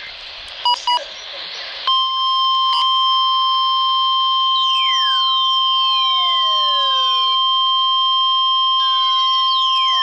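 NOAA Weather Radio warning alarm tone, a steady single 1050 Hz tone, sounding through a Midland HH-54 handheld weather radio's speaker during the weekly test. It starts about two seconds in, after two short beeps, and holds level, with faint falling whistles passing over it a few times.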